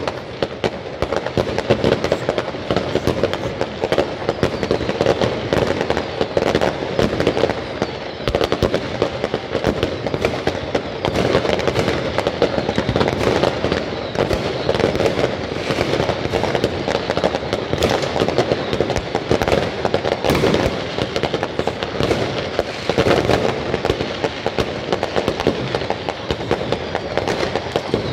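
New Year's Eve fireworks going off all over a town: aerial shells and rockets bursting in a continuous, dense barrage of bangs and crackles with no pause.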